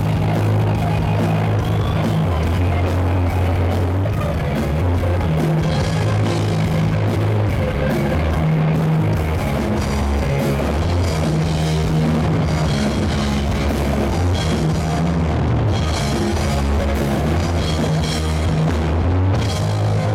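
Live rock band playing loudly: electric guitars over a steady drum kit beat with a heavy low end.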